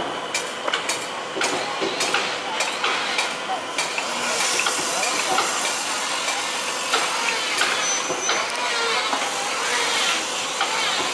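Boatyard work sounds: sharp knocks of hammering on timber, about two a second, for the first four seconds, then a steady hiss with voices mixed in.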